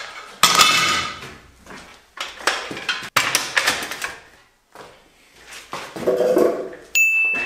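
Metal clanks and clatter as a folding workbench with a steel frame is opened out and its top set in place, with a sharp click about three seconds in. A bright, steady ding starts near the end.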